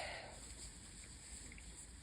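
The tail of a person's sneeze fading out over about half a second, then near silence with a faint steady hiss.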